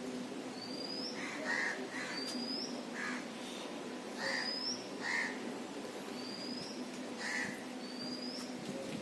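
Birds calling in trees: a short, rising high chirp repeats about once a second, mixed with scattered lower calls, over a faint steady hum.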